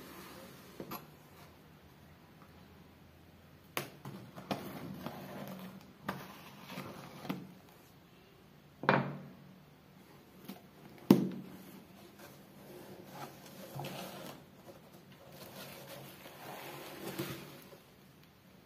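Cardboard shipping box being handled and opened: a craft knife cutting the packing tape, the box knocked and shifted, and the flaps scraping open. The loudest sounds are two sharp knocks about halfway through. Plastic bubble wrap rustles near the end.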